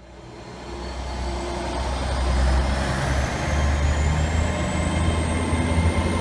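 A heavy engine running, fading in with a deep rumble, its pitch slowly rising.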